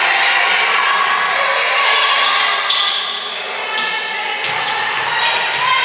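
Volleyball game in an echoing gym: crowd and players' voices over a steady din, with the thuds of the ball being played.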